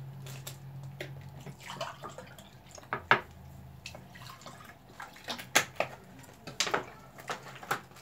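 A drink poured from a bottle into a glass, with several sharp knocks of glasses and bottles on the table.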